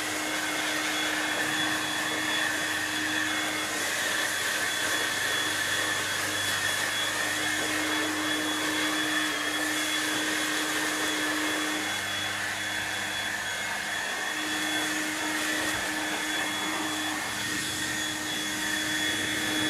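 Husqvarna 436 LiB battery-powered handheld leaf blower running steadily, blowing leaves and pruning debris out from under shrubs: a steady rush of air with a high electric whine.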